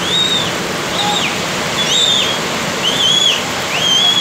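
Heavy rain and rushing water making a steady, loud noise, with a high chirping call, each rising then falling, repeating about once a second over it.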